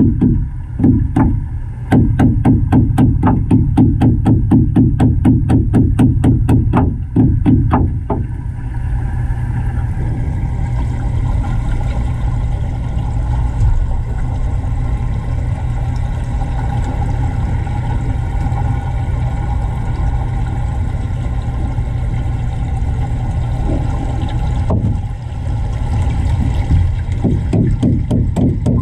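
Background music with a fast, steady beat, giving way after about eight seconds to a steady low rumbling hum. The beat comes back near the end.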